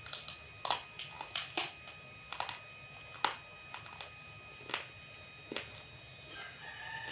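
Roasted multani mitti (fuller's earth clay) crunching close to the microphone: an irregular series of about a dozen sharp, crisp cracks. A faint pitched sound comes in near the end.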